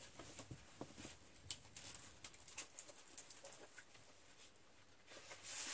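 Faint, scattered light ticks and taps of hands handling papercraft supplies, then a short rustle of card stock near the end as a sheet of glimmer paper is picked up.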